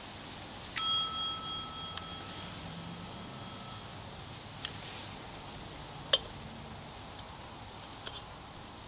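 A single bright bell-like ding about a second in, ringing out for about three seconds: the bell sound effect of a subscribe-button animation. A few short clicks follow over a faint steady hiss.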